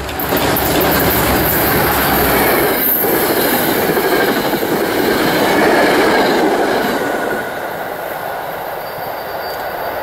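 NJ Transit passenger train with PL42AC diesel locomotive 4013 passing close at speed: the rumble of the cars and their wheels on the rails. It eases off after about seven seconds as the train goes by.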